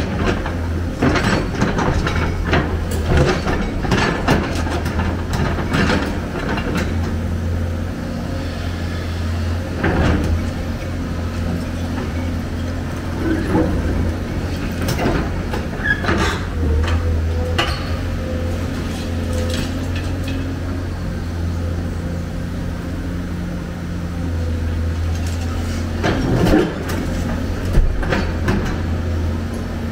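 Hyundai crawler excavator's diesel engine running steadily under load, with the bucket scraping and clanking through brick and concrete rubble. Sharp knocks of debris against the steel bucket come in clusters, most in the first few seconds and again near the end.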